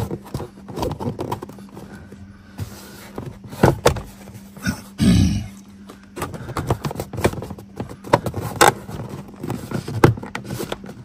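Plastic kick-panel trim in a Toyota Corolla footwell being pressed and tapped into place by hand, with scattered knocks, clicks and rubbing as it is seated over its clips.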